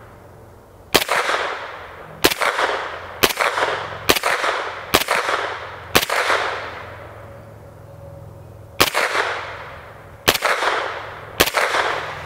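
Suppressed POF-5 9mm pistol, a roller-delayed MP5 clone, firing nine single shots of standard-velocity (not subsonic) 115-grain ball at uneven intervals of about a second, with a pause of nearly three seconds in the middle. Each shot is a sharp report followed by a short echo.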